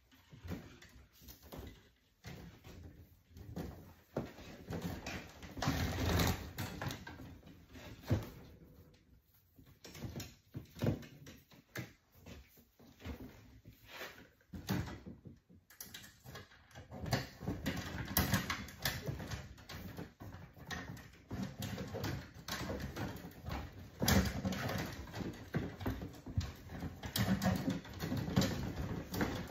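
Irregular rustling, scraping and clicking of electrical cables being handled and pushed into a breaker panel, with a quieter lull around the middle and busier handling in the second half.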